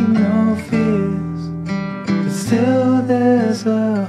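Background music: a song with acoustic guitar.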